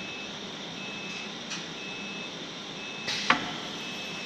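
CNC router machinery running with a steady hum and a faint high beep about once a second. There is a small click about a second and a half in, and just past three seconds a short hiss ending in a sharp clack.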